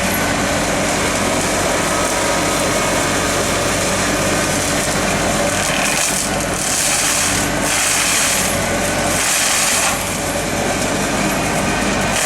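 Excavator-mounted flail mower running: a steady engine note under a dense, rushing hiss from the spinning flail head. Louder spells of hissing come about halfway through.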